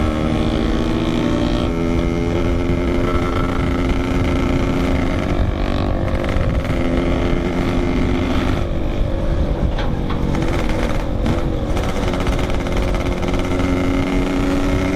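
Yamaha RX-King 135cc two-stroke single-cylinder motorcycle engine running under way, its note holding mostly steady and shifting in pitch a few times, with wind noise underneath.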